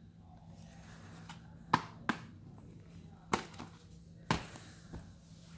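Cardboard beach-ball packages and a cardboard shipping box being handled: about five sharp knocks and taps of cardboard, spread over a few seconds.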